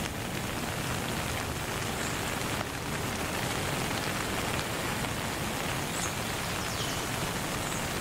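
A steady, even hiss like rain, with a few faint high squeaks about six to seven seconds in.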